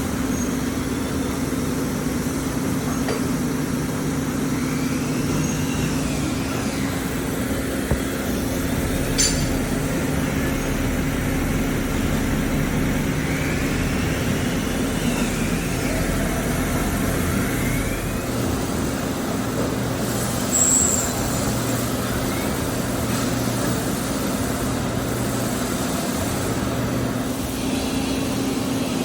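Nakamura-Tome WT-300MMY CNC lathe running under power: a steady machine hum with a faint whine that rises and falls a few times. There is a sharp click about nine seconds in.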